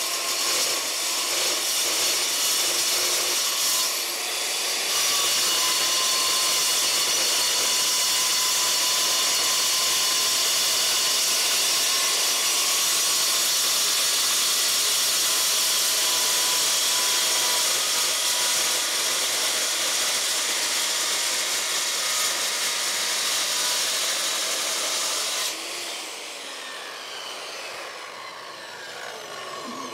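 Circular saw cutting through steel tubing, a steady high, hissing cut with a short dip about four seconds in. The cut ends about 25 seconds in and the saw motor winds down with a falling pitch.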